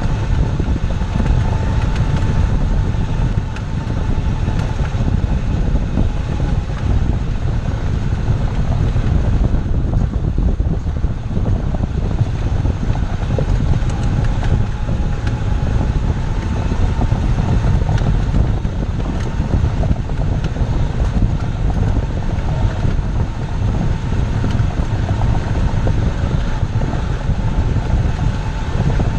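Chevrolet Zafira running: a steady low rumble of engine and road noise, with a faint thin whine above it.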